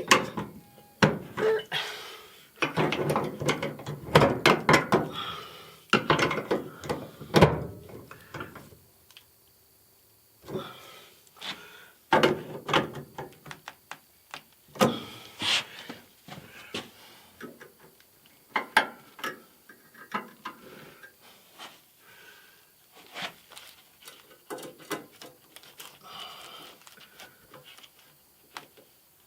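Irregular clicks, knocks and rattles of metal electrical conduit and its fittings being handled and tightened by hand, with a quiet stretch about nine seconds in.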